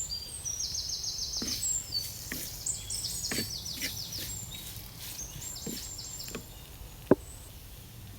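A spoon scraping and knocking now and then against a pan as onion-tomato masala with spices is stirred, with a handful of sharp separate knocks. Birds chirp high and repeatedly through much of the time.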